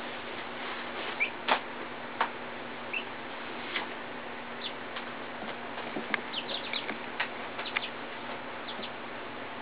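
Young chickens peeping: short, high, scattered peeps, the loudest about a second and a half in, with a quick run of them between about six and eight seconds in.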